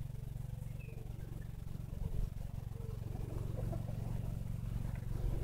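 Steady low mechanical hum, like an engine running, with faint small scattered sounds over it.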